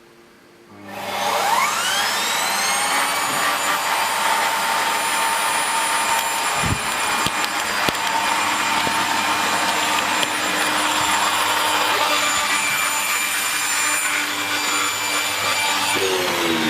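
SEBO Felix upright vacuum cleaner switched on about a second in, its motor whine rising as it spins up, then running steadily with the extension hose and mini turbo brush attached.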